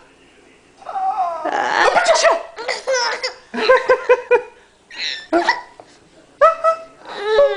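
A loud, noisy adult sneeze about a second in, followed by a baby laughing heartily in several separate bursts of high-pitched laughter.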